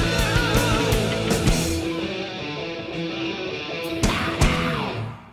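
Rock background music with a steady beat that drops out about two seconds in. Two sharp hits come a little after four seconds, then the music fades out at the end.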